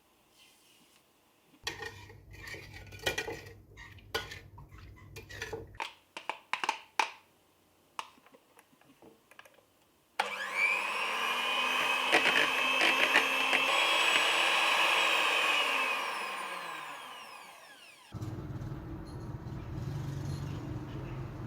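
A string of clicks and knocks, then a small electric motor starts abruptly, runs steadily for about six seconds, and winds down to a stop.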